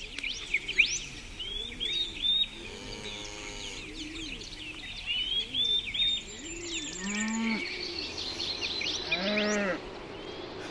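Cattle mooing: several short moos, the two loudest about seven and nine seconds in, over birds chirping throughout.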